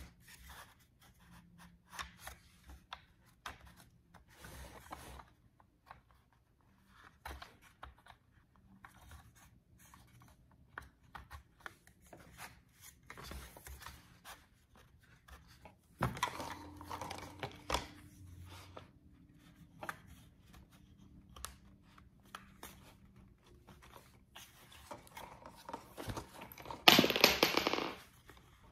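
Scattered clicks, rustles and scrapes of hands working the grey plastic tilt mechanism and its rod back into a blind's metal headrail, with the lift cords brushing about. A longer rustle comes about halfway, and a louder burst of noise about a second and a half long near the end.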